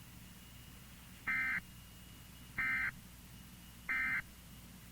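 Three short, identical electronic beeps about a second and a half apart, heard over the steady hum and faint whine of a weather-radio receiver's audio.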